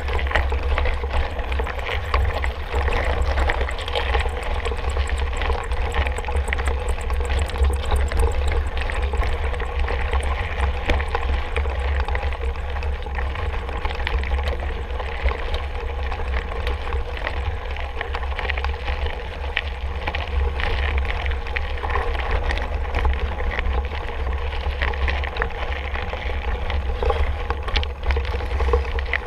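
Mountain bike on the move along a trail: a steady rush of tyre noise with many small rattles and clicks, over a constant low wind rumble on the microphone.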